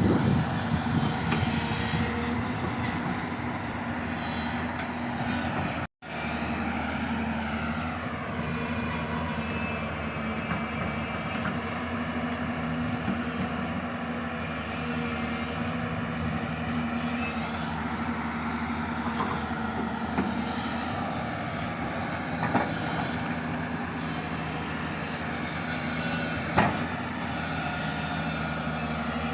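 Diesel engines of working crawler excavators running steadily under load, with a few sharp knocks in the second half. The sound cuts out for an instant about six seconds in.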